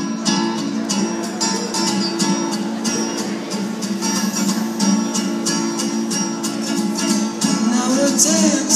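Acoustic guitar strummed in a steady, quick rhythm, played live and amplified through a PA.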